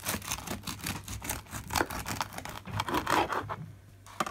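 Serrated bread knife sawing through a crusty loaf of Irish brown bread on a wooden board: a run of quick rasping strokes that stops about three and a half seconds in, with a short knock near the end.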